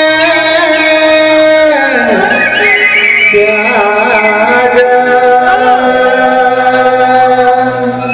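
A man singing a Kumaoni nyoli folk song through a microphone: he holds one long note, then about two seconds in slides into wavering, ornamented phrases, over steady held instrumental notes.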